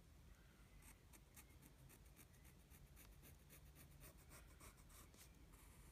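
Faint scratching of a pencil lead on lined notebook paper, a rapid run of short back-and-forth strokes starting about a second in, over a faint low room hum.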